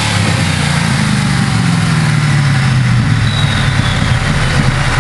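A 2003 Ford SVT Lightning's supercharged 5.4-litre V8 idling through straight side-exit pipes, fitted behind the stock manifolds and catalytic converters. Its pitch eases down a little in the first couple of seconds, then holds a steady idle.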